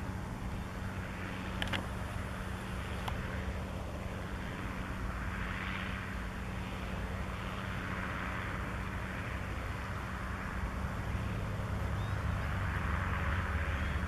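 John Deere tractor's engine running steadily under load while pulling a plough, a low steady hum that grows slightly louder near the end. Two faint clicks come about two and three seconds in.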